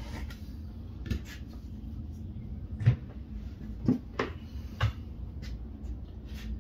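Five dull knocks of tools and leather being handled on a workbench, the loudest about three seconds in, over a low steady rumble.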